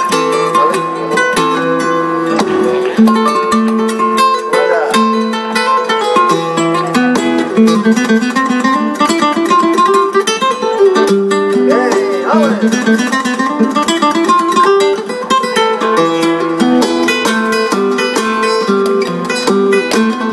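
Flamenco guitar playing a soleá apolá: rhythmic strummed chords alternating with quick runs of plucked notes. Palmas hand-clapping joins near the end.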